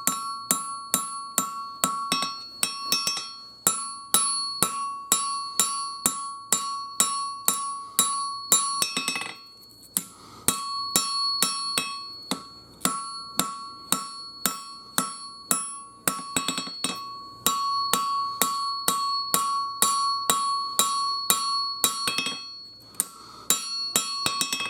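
Hammer blows on a steel anvil, drawing out the point of a 5160 steel throwing-knife blade: quick, steady strikes, about two to three a second, each leaving the anvil ringing, with two short breaks.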